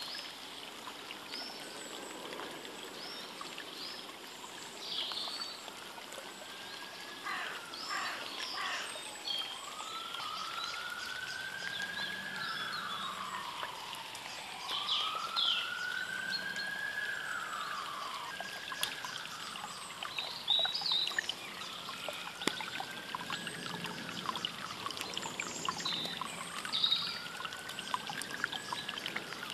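Small songbirds calling and chirping over a steady outdoor hiss. Several slow tones, each rising and then falling over about two seconds, come and go throughout, with a few faint clicks.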